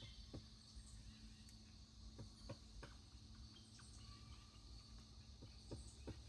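Faint, irregular pecking of a pileated woodpecker striking a tree while foraging for insects, about seven separate knocks a second or so apart.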